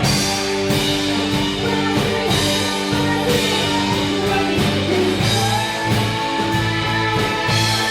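Rock music with a drum kit and sustained, held notes over a steady bass line.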